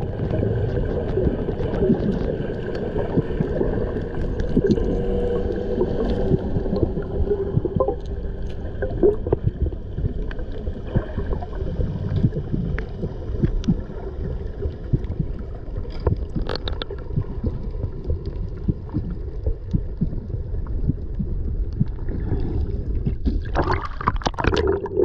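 Water sounds heard through an underwater camera: a dense low rumble with constant small crackling clicks and steady droning tones that fade out after about eight seconds. Near the end comes a louder burst of rushing, gurgling noise.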